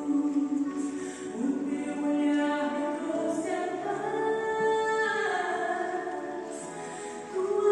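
Slow music with singing: voices holding long notes that glide from one pitch to the next.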